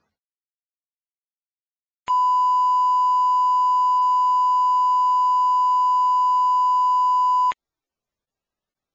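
Steady 1 kHz line-up test tone that accompanies television colour bars, one unbroken pitch lasting about five seconds; it starts sharply about two seconds in and cuts off abruptly.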